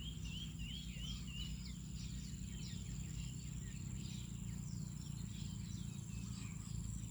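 Outdoor pond-side ambience: a steady high-pitched insect drone with birds calling throughout in quick, repeated falling chirps, a warbling call in the first second and a half, over a steady low rumble.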